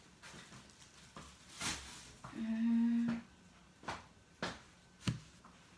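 A few light clicks and knocks from food containers being handled, with one short hummed 'mm' a little after two seconds in.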